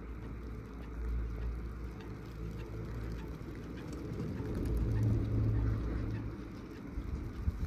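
Riding a CTEC fixed-grip chairlift: a steady low rumble that swells about halfway through, with a few sharp clicks near the end.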